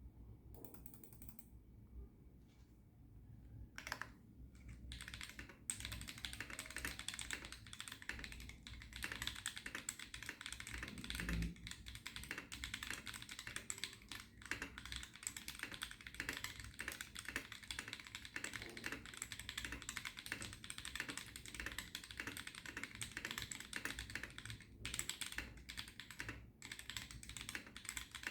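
Foxlab F80SE mechanical keyboard with lubed Aflion Melody switches on an aluminum plate being typed on. A few separate keystrokes come first, then fast continuous typing from about six seconds in, with a couple of short pauses near the end.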